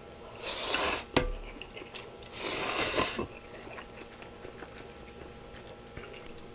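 Ramen noodles slurped twice in quick pulls, with a sharp knock between the two, then quiet chewing with small wet clicks.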